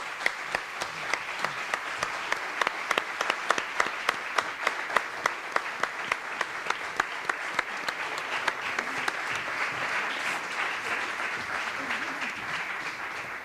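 Audience applauding steadily, dense clapping with a few sharp individual claps standing out, dying down near the end.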